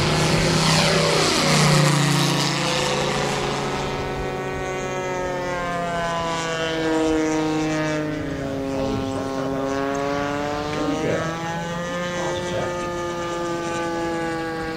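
Moki radial engine of a large-scale RC F4U Corsair flying past low, its pitch dropping steeply as it passes the microphone in the first second or two. It then keeps running steadily, its pitch drifting slowly up and down as the plane circles the field.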